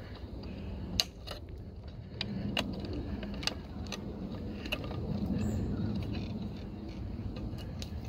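Side-cutting pliers snipping and working the coated wire of a suet-feeder cage: scattered sharp metallic clicks over a low steady rumble.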